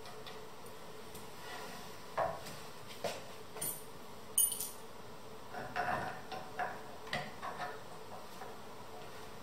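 Irregular small clicks and knocks of hardware and bentwood frame parts being handled while a rocking chair is put together by hand, over a faint steady hum.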